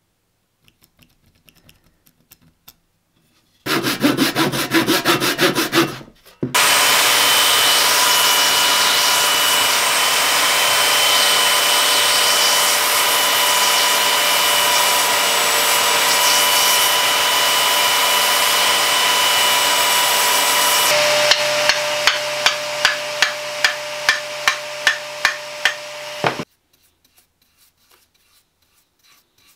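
A handheld electric power tool working a wooden hammer handle: it starts about four seconds in, stops briefly, then runs steadily with a motor whine under the noise of the cut. Near the end it weakens into rhythmic pulses and cuts off suddenly; a few faint clicks come before and after.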